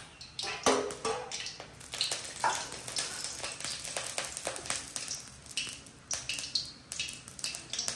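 Cooking oil heating in a kadai on the stove, crackling with sharp, irregular pops several times a second.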